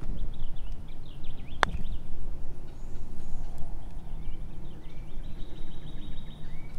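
A putter strikes a golf ball once, a single sharp click about a second and a half in. Birds chirp throughout over a steady low rumble.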